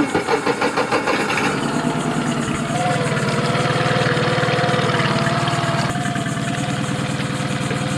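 Outboard boat motor starting up and running steadily with its lower unit in a tub of fresh water, being flushed of salt water; uneven at first, it settles into an even idle, with the pitch rising a little about three seconds in.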